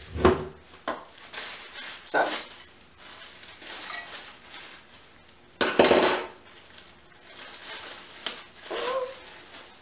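A hand mixer's two metal wire beaters clinking against each other while being unwrapped from a crinkling plastic bag, in several short bursts. The loudest comes about six seconds in.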